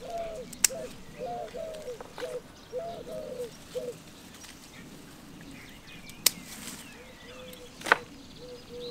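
Three sharp snips of hand secateurs cutting herb stems, the loudest sounds, spread through the clip. Under them a bird calls with low hooting notes in short repeated groups during the first four seconds, followed by softer, lower, evenly repeated notes.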